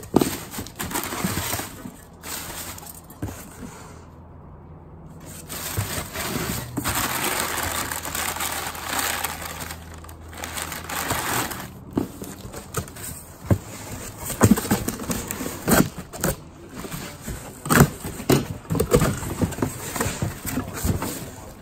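Cardboard box being opened and unpacked by hand: flaps and packing rustling and crinkling, with a run of sharp knocks and clunks in the second half as decorative items are lifted out and set down.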